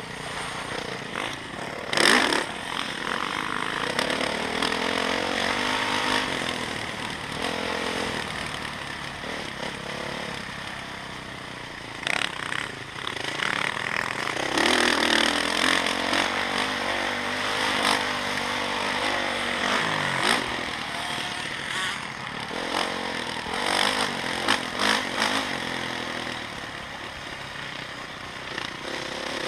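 Motocross bike engine heard close up from on board while it is ridden hard, its revs climbing and dropping over and over. A few sudden bursts of noise cut across it, the loudest about two seconds in.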